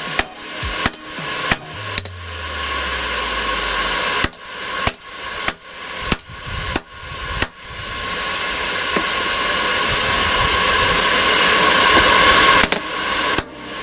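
Hammer blows on hot high-carbon steel on an anvil, about one and a half strikes a second, in short runs. Between the runs there is a steady rushing noise that grows louder and then cuts off suddenly near the end.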